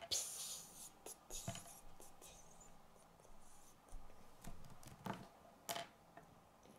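Small plastic Lego pieces being handled and pressed together by hand: faint rubbing and scraping with a few sharp clicks, the loudest scrape just after the start.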